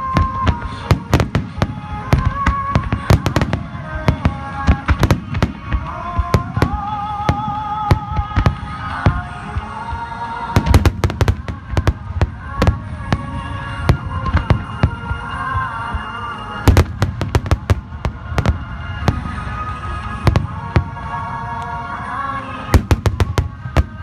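A dense barrage of aerial firework shells bursting, with dozens of sharp bangs in quick succession, over music playing with a sustained melody.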